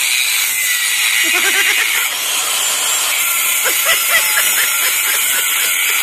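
Arc welding on steel: a steady, loud hissing sizzle from the welding arc.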